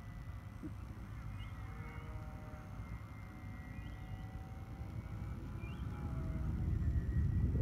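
Faint whine of an electric RC plane's motor and propeller flying high overhead, under wind rumbling on the microphone that grows louder near the end. A bird chirps briefly every second or two.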